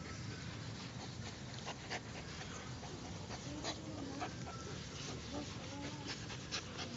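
Dog giving a few short, low whines and snuffles while being petted, with rustling and clicks from a hand moving over its fur and the phone being handled.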